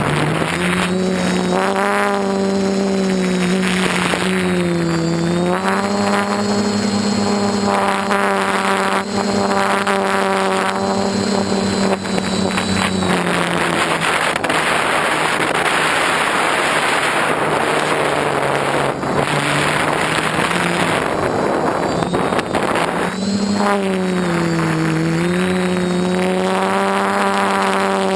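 DJI F450 quadcopter's electric motors and propellers running with a steady hum. The pitch dips and recovers with throttle changes about five seconds in and again near the end. For several seconds in the middle the hum fades under a loud even rushing noise.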